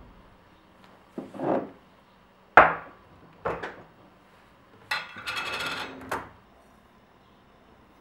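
A glass jar of loose tea being handled on a stone counter: a short scrape of the jar lid, a sharp glass knock (the loudest sound), a lighter knock, then about a second of dry tea leaves rattling as they are tipped into a glass jug of water.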